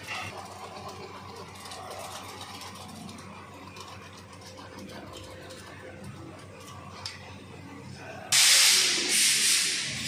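Compressed air hissing from an air blow gun, two loud blasts starting suddenly about eight seconds in, after several seconds of faint tool-handling noise on the tyre.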